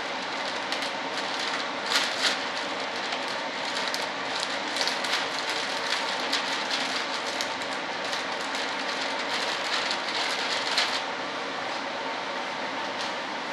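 Plastic vacuum bag crinkling and crackling as hands press and smooth it down over a composite layup, over a steady hiss. The crackling stops about 11 seconds in.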